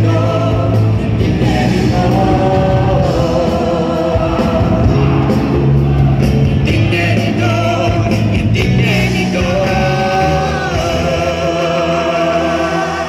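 Live band playing a song with singing, amplified through PA speakers in a large hall.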